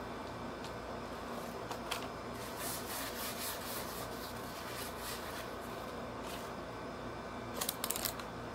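Close-up eating-and-handling noises: scratchy rubbing and rustling as hands work a burger and rub crumbs off the fingers, with a few sharp clicks about two seconds in and a quick cluster near the end, over a steady low hum.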